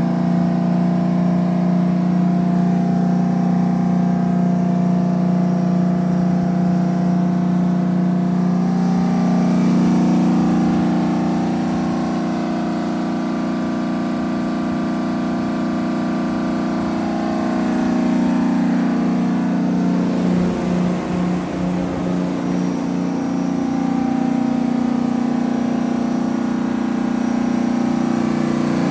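Detroit Diesel 12V71, a two-stroke V12 diesel driving a 425 kW generator, running steadily. Its drone holds an even pitch, its tone shifting slightly a few times.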